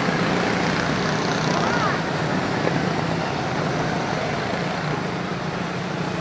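A pack of Honda-powered quarter midget race cars lapping a small oval, their small single-cylinder four-stroke engines droning together at race speed, one car's pitch gliding briefly as it passes about a second and a half in.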